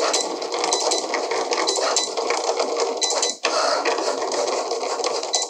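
A Cricut Explore 3 cutting machine cutting vinyl: its stepper motors whir and buzz as the blade carriage shuttles side to side and the rollers feed the sheet back and forth. The sound breaks off briefly a little past three seconds in, then stops suddenly at the very end as the cut finishes.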